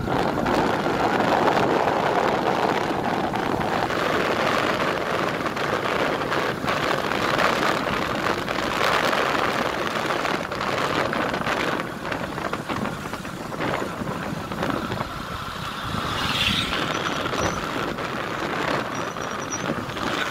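A motorcycle riding along a paved road: steady engine and road noise with wind buffeting the microphone, in short gusts throughout.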